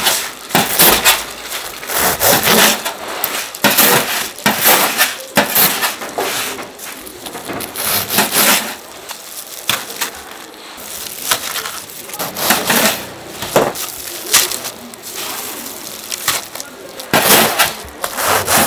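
A knife sawing through the crisp breadcrumb crust of deep-fried croquette toast, giving loud crunching in repeated strokes, with a couple of short pauses between cuts.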